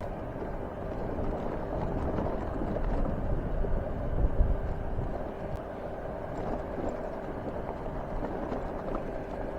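Motorcycle running on the move, its engine sound mixed with wind rumbling on the microphone; it starts abruptly and stays steady.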